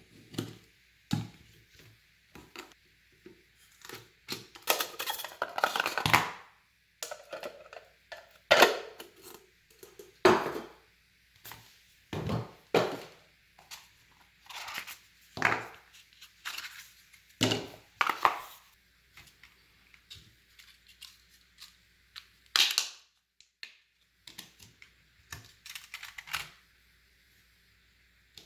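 Hands handling PC parts and their packaging: irregular rustling, crinkling and tearing noises with sharp knocks, including a longer stretch of continuous crinkling about five seconds in.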